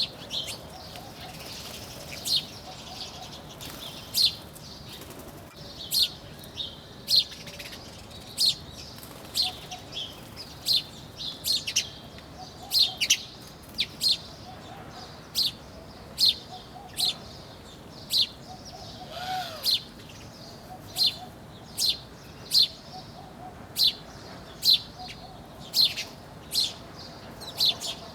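Small birds chirping: a long run of short, sharp, high chirps, about one or two a second, with a softer, lower twittering now and then underneath.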